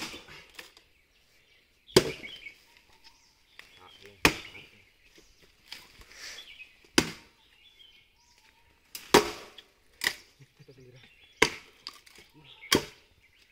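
Axe blows striking a log, splitting it into long planks for firewood. There are about eight sharp chopping knocks at an uneven pace, one to three seconds apart.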